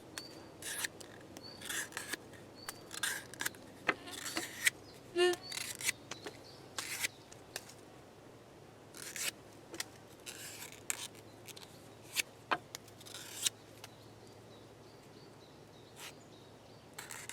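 Cold Steel RECON 1 Tanto folding knife slicing through thick leather: a string of short, irregular cutting and scraping strokes with a few sharp clicks.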